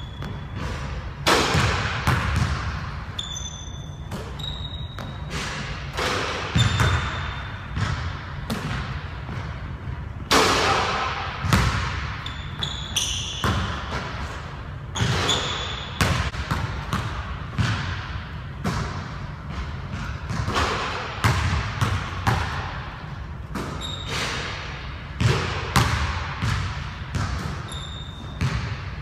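A basketball bouncing and thudding on a hardwood gym court, with its impacts off the rim and backboard during shooting, echoing in the large hall. Short high sneaker squeaks come in between the bounces.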